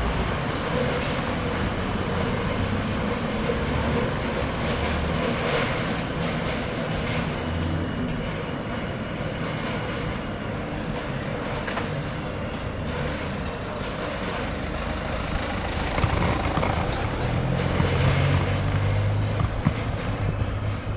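Steady rushing noise of a bicycle ride over brick paving: wind on the microphone and the tyres rumbling over the bricks, with uneven low buffeting.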